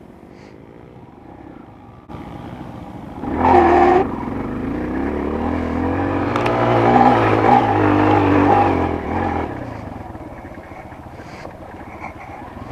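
Enduro dirt bike engine pulling away under throttle with a quick clutch release in second gear. About three seconds in there is a short, loud screeching mechanical noise, then the engine revs up and holds before dropping back. The rider suspects the clutch as the cause.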